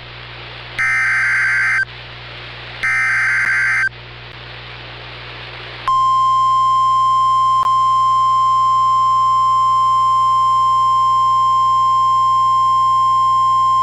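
Emergency Alert System broadcast on NOAA Weather Radio: the last two of three SAME header data bursts, harsh warbling bleats about a second long and a second apart, with radio hiss between them. About six seconds in, the single-frequency 1050 Hz NWS attention tone begins and holds steady.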